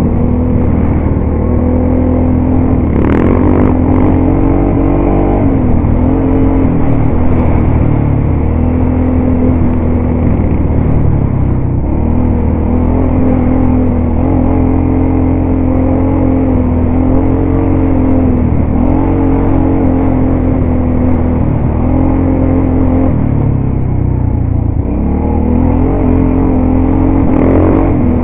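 ATV engine running under way on a rough dirt trail, its pitch dipping and climbing again several times as the throttle is eased and opened. A couple of short knocks, about three seconds in and near the end, come from the machine jolting over the ruts.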